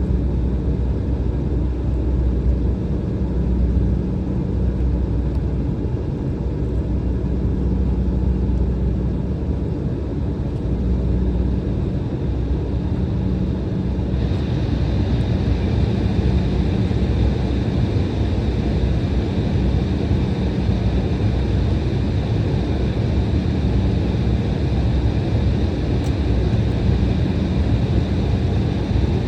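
Cabin noise inside an Embraer E175 jet on the ground before takeoff: a steady low rumble and hum. About halfway through, a higher hiss with a faint steady whine comes in suddenly and stays.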